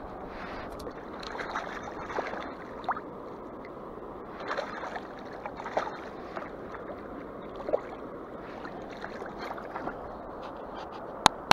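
Water sloshing and splashing as a fish is dropped into a wire keepnet held in the river, over the steady rush of flowing water. A single sharp click near the end is the loudest sound.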